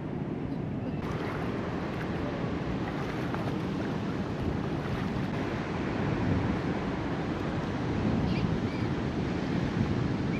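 Wind buffeting the microphone over the rush of shallow river water, with a few short bird calls near the end.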